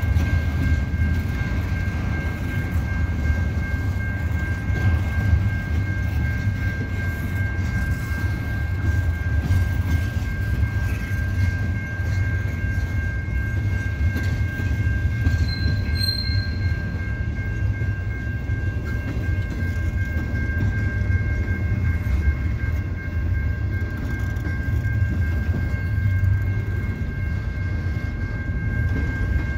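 Double-stack intermodal well cars rolling slowly past on the rails with a steady low rumble. A steady high-pitched tone rings above it throughout.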